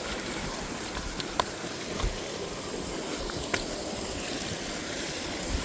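Creek water running steadily, with a few light clicks scattered through it.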